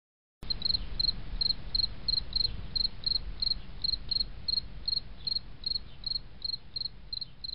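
Cricket chirping in an even rhythm, about three short chirps a second, over a steady low rumble; it starts about half a second in.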